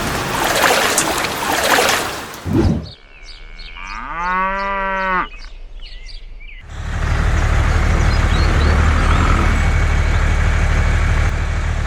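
A dense rush of noise, then a single long cow moo about four seconds in, then a steady low engine drone that sets in about halfway through and runs on evenly.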